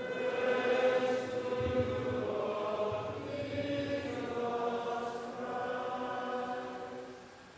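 Voices chanting a liturgical response in unison, with long held notes in one continuous phrase that fades out near the end.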